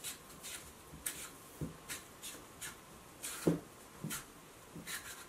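Handheld vegetable peeler scraping skin off a firm raw potato: about a dozen short, quick scraping strokes, unevenly spaced, with a soft knock about three and a half seconds in.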